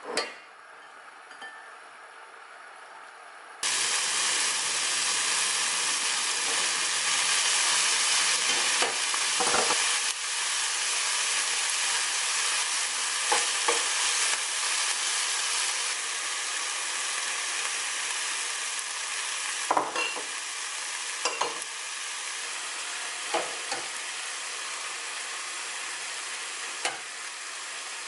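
Food frying in a hot non-stick pan: a loud, steady sizzle that starts suddenly a few seconds in. A spatula knocks and scrapes against the pan now and then.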